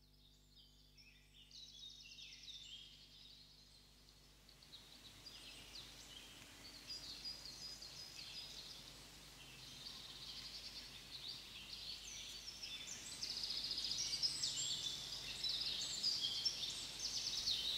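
Many songbirds singing at once, a dense chorus of quick chirps and trills that grows steadily louder, over a faint low held drone.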